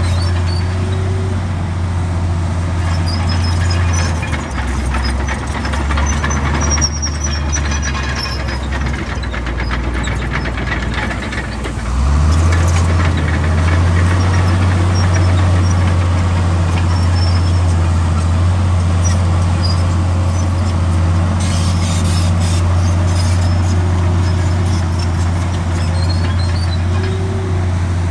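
Komatsu D65 crawler bulldozer's diesel engine running hard, with short high squeaks from its steel tracks. The engine note sinks lower at about four seconds and jumps back up, louder, at about twelve seconds.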